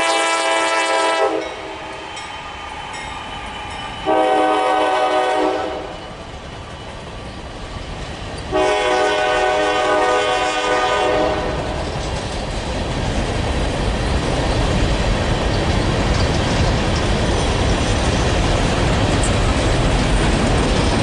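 Diesel freight locomotive's multi-chime air horn: a blast ending about a second in, a short blast about four seconds in, and a long one about nine seconds in, the closing short and long of a grade-crossing signal. Then the train rolls past, rumbling and clattering over the rail joints, growing louder.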